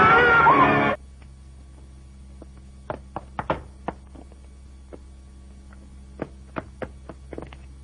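A song with a singing voice cuts off abruptly about a second in. It gives way to a steady low hum from an old film soundtrack, with scattered sharp clicks and knocks in two clusters.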